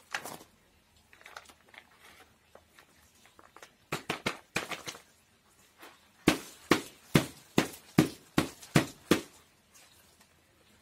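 Scattered crunching and clicks of bark substrate being pressed into a flowerpot around an orchid's roots, then a run of about nine sharp knocks, roughly three a second, as the pot is worked to settle the substrate.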